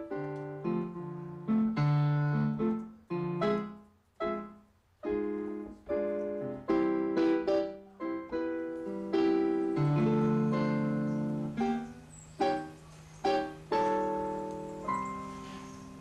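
Piano music: single notes and chords, each struck and then ringing away.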